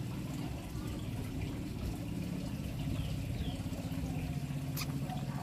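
A steady low motor hum with a fast, even pulse. A few faint short high chirps fall in pitch, and there is one sharp click near the end.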